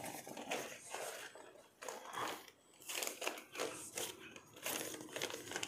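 Paper and plastic packaging crinkling and rustling as it is handled and pulled out of a torn shipping mailer, in irregular bursts.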